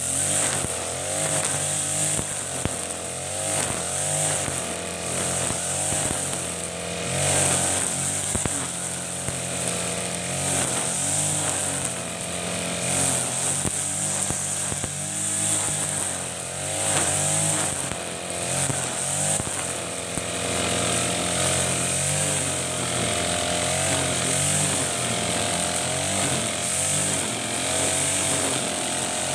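Backpack brush cutter with an Ogawa GX35 single-cylinder four-stroke engine running at working speed, its nylon line cutting grass. The engine note is steady, dipping and rising a little in pitch.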